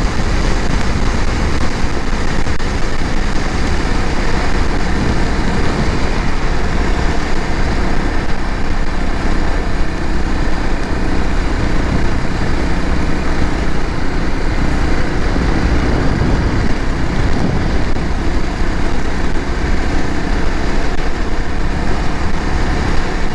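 Off-road motorcycle engine running steadily while riding along a paved road, mixed with road and wind noise.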